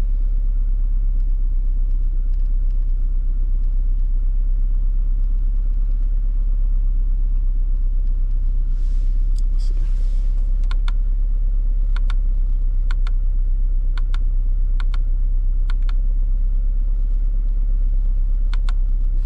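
Car engine idling steadily, heard from inside the cabin as a constant low rumble. Short double clicks repeat about once a second through the second half.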